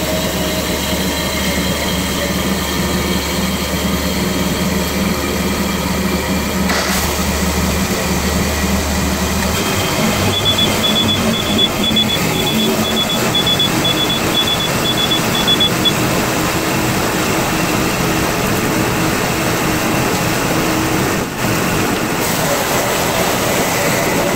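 A John Deere commercial mower's engine running in an enclosed garage, steady at first, then changing about ten seconds in as the mower moves off. From about ten seconds in, for some five seconds, a smoke alarm beeps rapidly and high, set off by the engine's exhaust.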